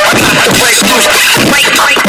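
Loud hip-hop music in a DJ mix, with turntable scratching over the beat.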